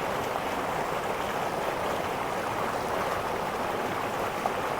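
Swollen river rushing steadily, running heavy after a hurricane.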